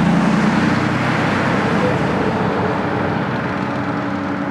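Federal 3T22A three-phase outdoor warning siren sounding in its one-minute alert test, a steady sound with a few low tones in it that slowly grows quieter.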